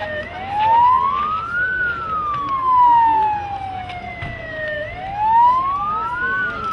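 Vehicle sirens wailing, the pitch rising over about a second and a half and falling more slowly over about three seconds. A second siren joins out of step near the end.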